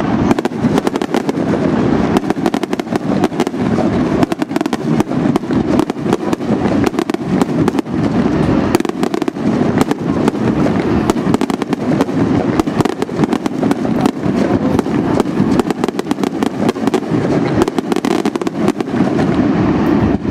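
Fireworks display going off in a dense, continuous barrage: many sharp bangs and crackles a second over a constant low rumble of explosions.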